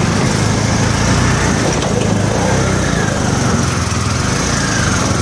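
Small engine running steadily at an even pace as the vehicle it drives moves through floodwater.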